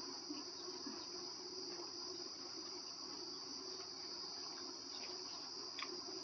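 Crickets chirring in a steady, continuous high-pitched drone, with a few faint clicks over it.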